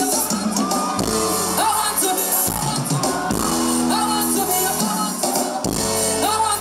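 Live band music with a woman singing lead into a microphone, backed by hand drums and bass guitar.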